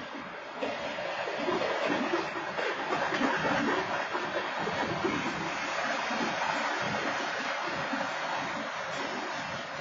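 Freight train cars rolling past on the rails: a steady rushing rattle of wheels and cars that swells about a second in, heard through a security camera's microphone. No horn sounds.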